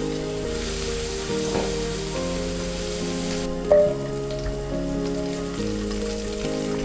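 Food frying in hot oil in a pan, sizzling strongly for the first half and then more quietly, over background music. A single short ringing clink about halfway through.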